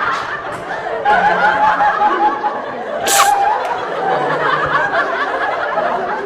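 People giggling and laughing, with a single short sneeze about three seconds in.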